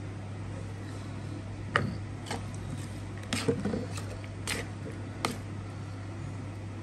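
A metal spoon stirring raw anchovies, sliced radish and onion in vinegar in a bowl: several irregular clinks and scrapes of the spoon against the bowl, with wet squishing in between. The loudest clink comes about two seconds in. A steady low hum lies underneath.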